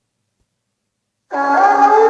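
Dinosaur roar sound effect: after a silent gap, a loud, horn-like pitched bellow starts a little past halfway through, its pitch rising slightly.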